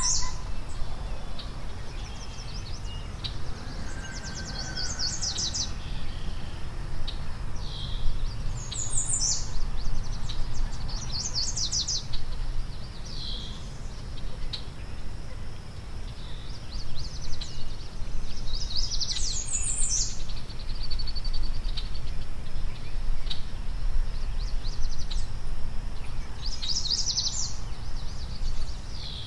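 A songbird singing the same short, high, rapid trilled phrase over and over, one every few seconds, over a steady low rumble.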